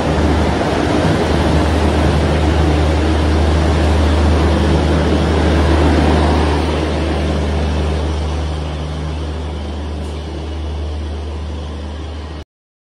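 Passenger train hauled by an electric locomotive running past close alongside a platform: a steady low hum with the rumble of wheels on rails. It fades gradually as the coaches go by, then cuts off suddenly near the end.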